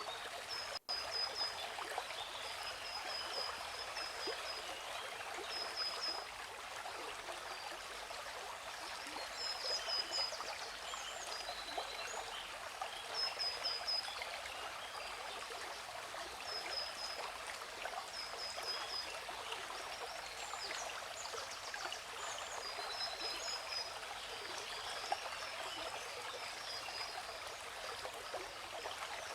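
Steady rush of a waterfall, with a bird chirping short, rapid strings of high notes every second or two over it. The sound cuts out for an instant about a second in.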